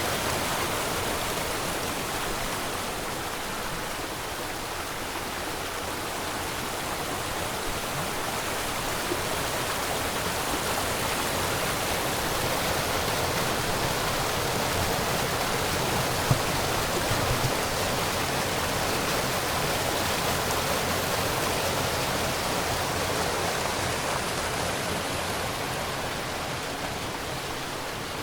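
Small waterfall running steadily, an even hiss of falling and splashing water, with a brief knock a little over halfway through.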